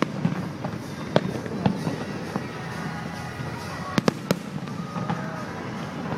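Fireworks bursting: sharp bangs at the start, a pair about a second in and another pair about four seconds in, over a steady background hum.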